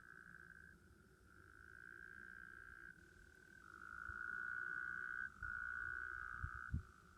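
An animal trilling on one high pitch in runs of about a second or more, with short breaks between them. It grows louder past the middle, and a few soft low bumps come near the end.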